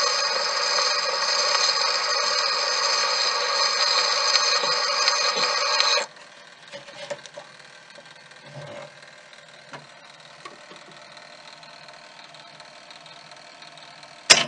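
A 1922 Edison Diamond Disc of a dance band playing on an Edison C-150 acoustic phonograph: the band holds a final sustained chord for about six seconds, then the music cuts off. The record then turns with only faint surface hiss and crackle and scattered small clicks, and a single sharp clunk comes near the end.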